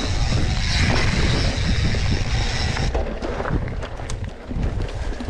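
Mountain bike riding down a rough trail: wind buffeting the microphone over tyre rolling noise, then from about halfway on a run of sharp clicks and knocks as the bike rattles over rocks and roots.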